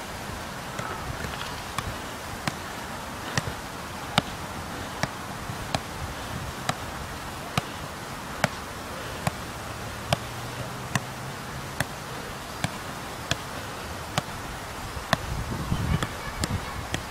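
A football being juggled: a sharp thud at each touch of foot or head, about one every 0.8 seconds, over steady outdoor hiss. The touches come quicker near the end.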